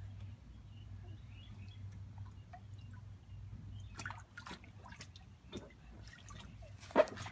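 Small bare-foot steps squishing and patting on the wet vinyl floor of an inflatable pool, with scattered light drips and taps over a steady low hum. One sharp knock stands out near the end.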